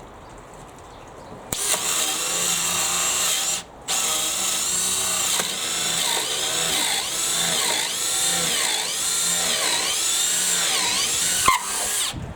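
Makita XPH07 brushless 18V cordless hammer drill boring a 25 mm speed-bore bit into treated pine. The motor whine starts about a second and a half in and stops briefly. It then runs on, its pitch dipping again and again as the bit loads up, and stops near the end just after a sharp click.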